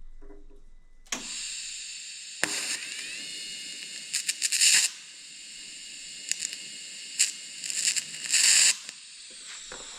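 TIG welding arc on a copper radiator seam: a steady high hiss that strikes about a second in, with louder crackling spurts several times, and cuts off near the end.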